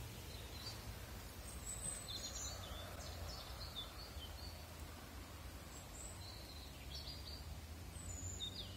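Light rain falling on the canal and the leaves overhead: a steady faint hiss. Small birds chirp now and then above it, several short high calls.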